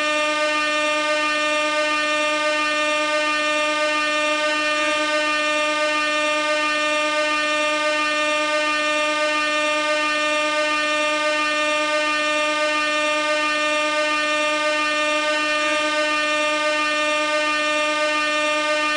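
Air horn held in one continuous, unbroken blast: a single steady note that neither breaks nor changes in loudness.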